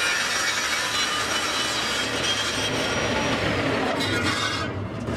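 Table saw cutting through a thin wooden drum shell as the shell is turned against the blade, parting off a ring. A high whine starts to fall about three seconds in, and the cutting sound dies away shortly before the end as the cut is finished.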